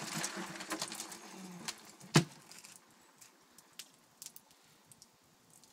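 A large carp being lifted out of a cooler: wet splashing and rustling for the first second or so, then one sharp thump about two seconds in, followed by a few faint scattered clicks.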